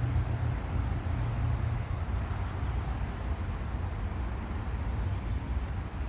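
Small birds giving short, high chirps that sweep downward, about five in all, the clearest about two seconds in and near the end, over a steady low rumble.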